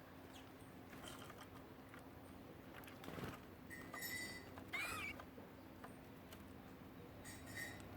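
Birds giving short calls three times, each a brief note near the middle of the range. Faint scattered ticks and patter run underneath.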